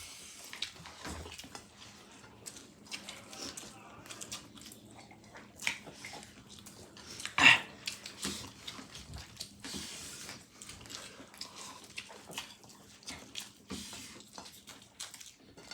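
Several people eating fried rice quickly: scattered short chewing and mouth noises, with one louder sharp click about halfway through.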